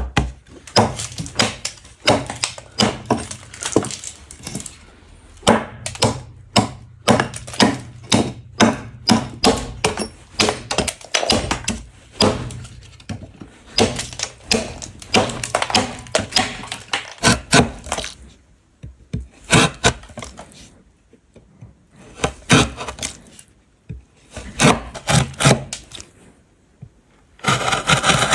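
Hand carving tool cutting into a block of wood in quick, sharp strokes, about two or three a second, with short pauses between runs of cuts. Near the end the strokes give way to a continuous scraping across the wood.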